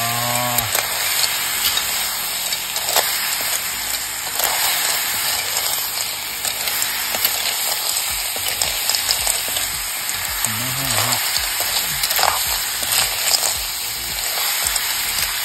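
Snails in their shells and sliced elephant apple sizzling in hot oil in an iron wok, stirred with a metal spatula: a steady sizzle with the shells clattering and the spatula scraping the pan.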